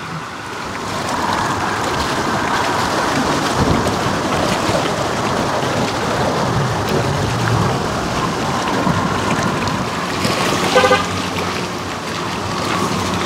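Strong wind rushing against the microphone, a steady noisy rumble and hiss that a wind muff does not fully stop. About eleven seconds in, a brief pitched toot sounds over it.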